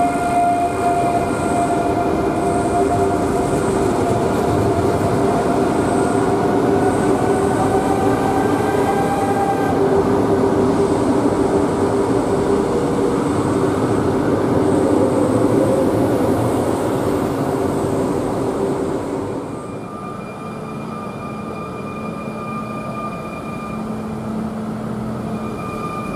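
SNCF Z 26500 (TER 2N NG) double-deck electric multiple unit running out of the station past the platform: its traction motors whine over steady wheel and rail noise, one tone rising slowly as it gathers speed. About twenty seconds in, the sound changes to a quieter, steady electric hum from a Z 23500 TER unit standing at the platform.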